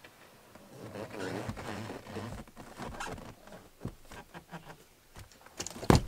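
Vinyl boat seat cushions being handled and pushed into place: rubbing and scraping of vinyl for a couple of seconds, a few light knocks, then one sharp knock just before the end as a cushion is set down.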